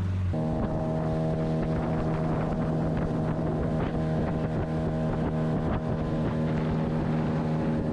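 Boat's outboard motor running under way, stepping up in pitch about a third of a second in, then holding a steady speed.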